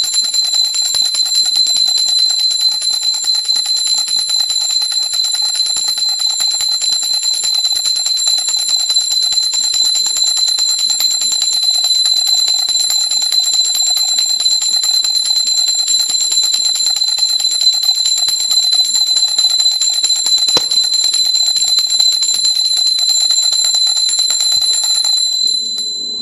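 Indian pooja bell (ghanti), a hand-held brass bell, rung rapidly and continuously, its clapper striking many times a second over a high, steady ring. Near the end the ringing stops and the tone fades away.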